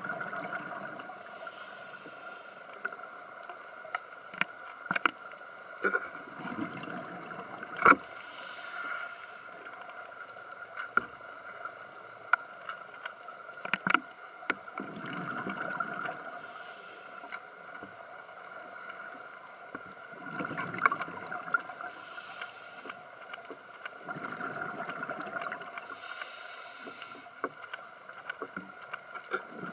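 Underwater sound of a diver breathing through a scuba regulator: a hiss on each breath in and a bubbling rumble of exhaled bubbles, repeating every several seconds over a steady hum, with scattered sharp clicks.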